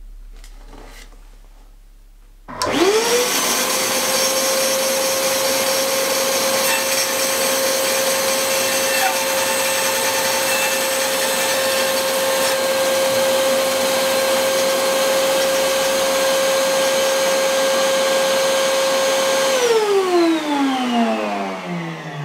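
Bandsaw switched on, its motor spinning up quickly to a steady running hum with a clear whine. It runs for about seventeen seconds with little change, then is switched off and winds down, the whine falling steadily in pitch.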